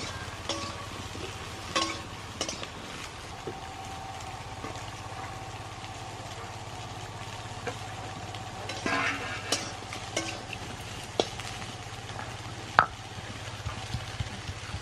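Food frying in a pan while it is stirred, with scattered clicks and scrapes of the utensil against the pan and one sharp clack near the end.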